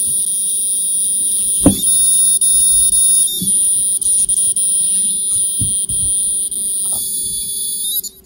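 Edison V2.0 educational robot's buzzer sounding a steady, very high electronic tone that changes pitch a few times as the robot is slid between orange and white, then cuts off near the end as it reaches black. A sharp knock from handling the robot about two seconds in.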